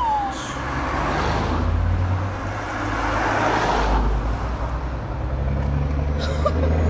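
Peterbilt truck's diesel engine running with a low steady rumble, joined by a rushing noise that swells through the middle and fades away.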